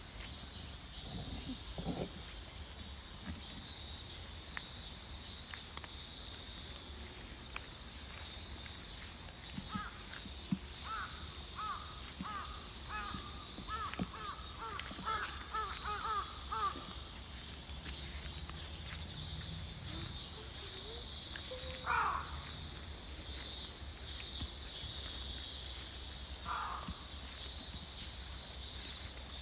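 Crows cawing: a run of short calls, then a louder single caw and one more near the end, over a steady pulsing chirr of insects.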